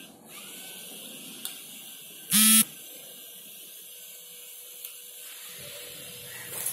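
A single short buzzing beep, about a third of a second long, a little over two seconds in, over a steady low background noise.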